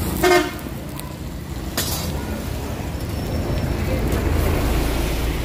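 Steady street traffic rumble from passing vehicles, swelling about four seconds in. A brief loud pitched sound comes just after the start, and a sharp click about two seconds in.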